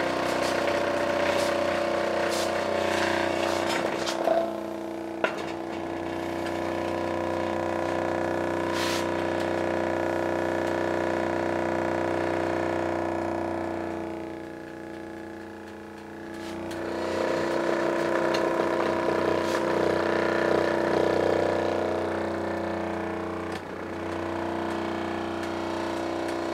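An experimental diaphragm engine with magnets on its diaphragm runs under electrical load, driving a generator coil. It makes a steady multi-toned buzz that fades for a couple of seconds about halfway through and then comes back. A few sharp clicks sound over it.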